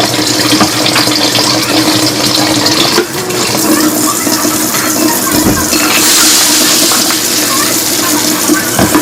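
Water running from a kitchen tap into a sink, a steady splashing rush that changes in character a couple of times as the flow or what it hits shifts.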